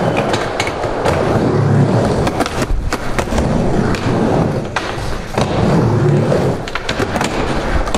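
Skateboard rolling on a wooden mini ramp: a steady wheel rumble that swells twice as the board runs through the transitions, with scattered sharp clacks from the board.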